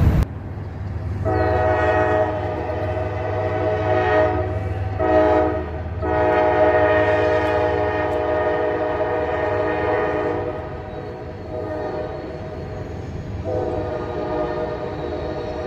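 Air horn of an approaching CSX freight locomotive sounding a chord: a long blast, a short one, then a long one, and after a pause another blast begins near the end. A low rumble from the train runs beneath the first half.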